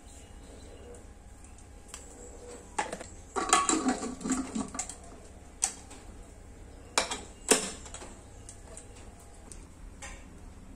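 Handling a small aluminium pressure cooker: a second or so of clattering pouring into the pot, then a few sharp metal clicks about seven seconds in as its lid is fitted and locked.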